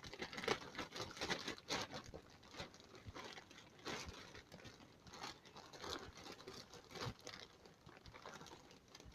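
Toy packaging being handled and pulled open: irregular crinkling and rustling with scattered small clicks and crackles.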